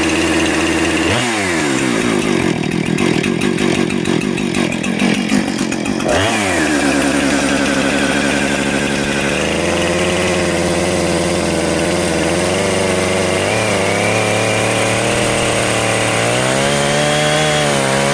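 Chainsaw revving up about a second in and cutting through a board for about five seconds, then dropping back toward idle; it revs up again near the end.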